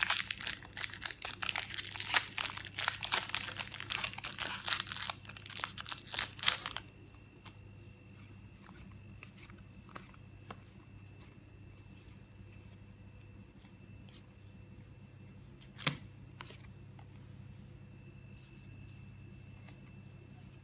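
A Magic: The Gathering booster pack's foil wrapper being torn open and crinkled for about seven seconds. It then stops, leaving only faint clicks of playing cards being handled.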